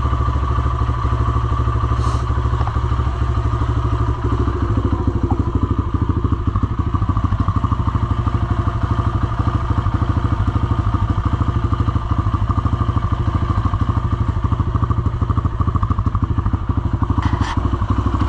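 Kawasaki KLX140 dirt bike's single-cylinder four-stroke engine idling steadily and evenly. It is running smoothly on a freshly adjusted carburettor fuel screw after sitting unused on old fuel. Two brief clicks sound over it, one about two seconds in and one near the end.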